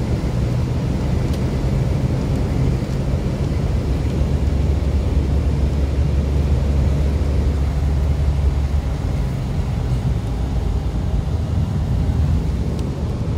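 A car driving on a rain-soaked expressway, heard from inside the cabin: a steady low rumble of tyres and engine with a hiss of wet road spray above it. The rumble swells heavier for a few seconds in the middle.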